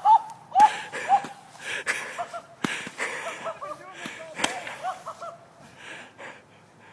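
Handheld fireworks being fired, several sharp pops and cracks, mixed with people's shouts and whoops.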